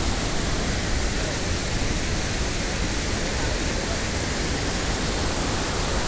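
Waterfall rushing over boulders: a steady, unbroken wash of water noise.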